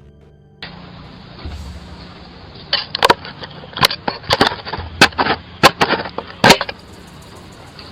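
An irregular series of about ten sharp knocks or bangs over steady background hiss, heard through a doorbell camera's microphone. The knocks come in the middle few seconds, the loudest near the end of the run.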